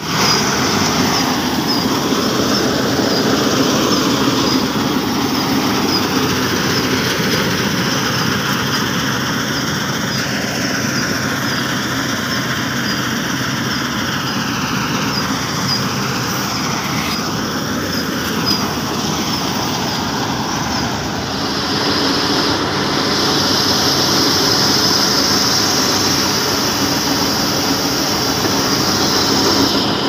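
New Hind 999 combine harvester running as it cuts paddy: a steady, loud mix of diesel engine and the reel, cutter bar and threshing machinery, with a thin high whine on top. It grows a little louder and brighter about two-thirds of the way in.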